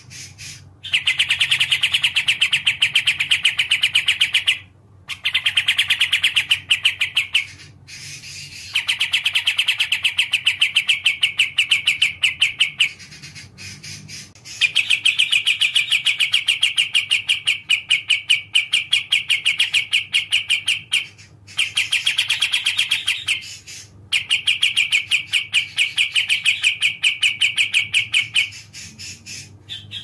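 Kapas tembak songbird singing: long strings of very fast repeated high notes, each phrase lasting two to six seconds with short breaks between, about seven phrases in all.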